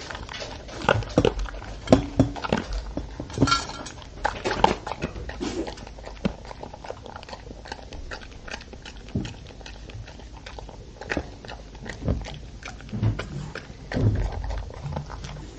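Old English Sheepdog eating dry kibble from a stainless steel bowl: steady crunching and chewing, with irregular clicks and clatters of kibble and muzzle against the metal bowl.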